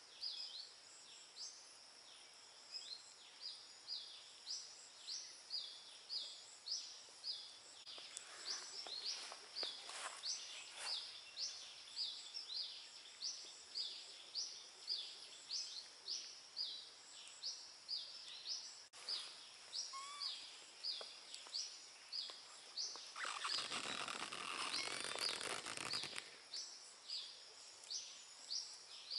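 A bird repeating a short, sharply rising high chirp about twice a second. Twice there are a few seconds of broad rustling noise, the second, about three-quarters of the way in, the louder.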